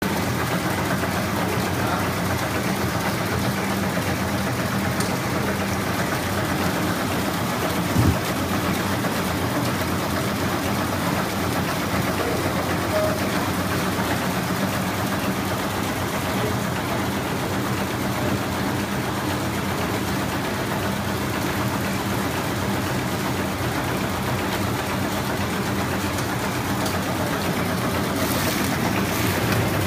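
High-speed candy flow-wrapping machine running steadily: a continuous mechanical noise over a steady low drone. A single sharp knock about eight seconds in, and a few short high-pitched noises near the end.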